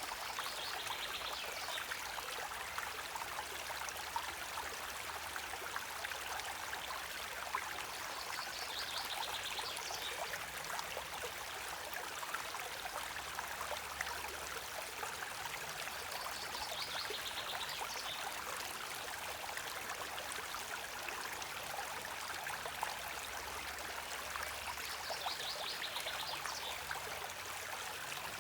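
A stream's water flowing steadily. A short, high, rapid ticking sound recurs about every eight seconds.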